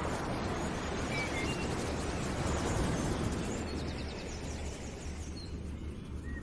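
Outdoor nature ambience: a steady rushing noise with a few short bird chirps over it.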